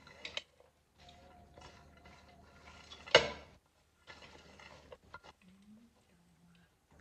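Kitchen handling sounds as vegetables are tipped into a bowl for salad: soft rustling and light clicks, with one sharp loud clank of crockery about three seconds in.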